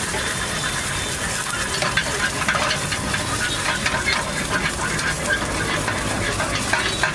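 An egg omelette sizzling as it fries in oil in a small pan over a gas flame. A metal spatula scrapes and taps against the pan in many short clicks over the steady sizzle.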